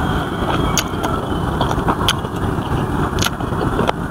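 Close-up chewing of a mouthful of boneless chicken feet, with a few sharp crunching clicks over a steady low rumble.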